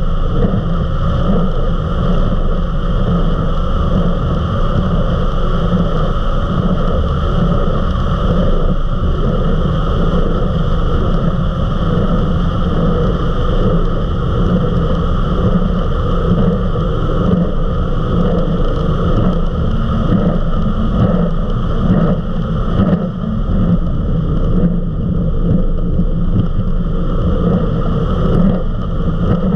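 Eliminator 31 XO Speedster powerboat running at high speed: a steady, loud engine drone mixed with the rush of wind and water.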